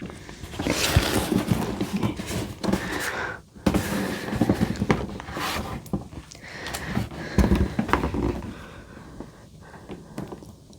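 Cardboard box being handled and turned over: irregular rustling and scraping with scattered knocks.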